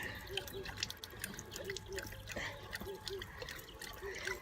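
A dog lapping water from a running tap: a thin trickle of water with quick irregular wet clicks and splashes from the tongue. Faint short squeaks come in pairs about once a second.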